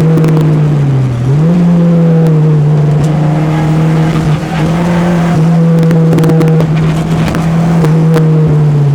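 Peugeot 205's four-cylinder engine running hard at high revs, its note dipping in pitch about a second in as if through a gear change and climbing back, then holding steady.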